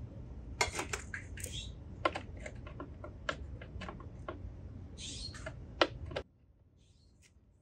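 Irregular small metallic clicks and taps of a Phillips screwdriver working the screws out of a Honda mower's blade clutch, over a low hum. The sound cuts off suddenly about six seconds in.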